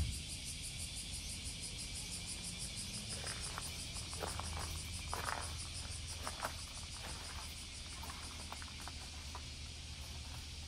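A steady chorus of summer cicadas buzzing in a high, fast-pulsing drone, with a low steady hum underneath. A few light footsteps tap through the middle.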